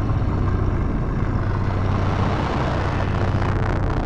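Steady, loud low rumbling drone with a dense noisy wash above it, dark ambient music laid over the footage.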